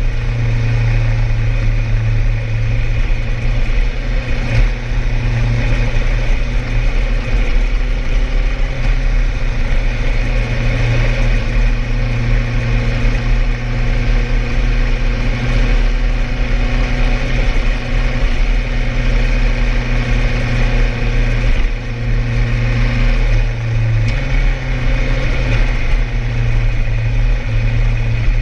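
Suzuki GSX-R1000R's inline-four engine running through an aftermarket exhaust while the bike cruises at a steady speed. The engine note holds steady, then drops in pitch and comes back up a few seconds before the end.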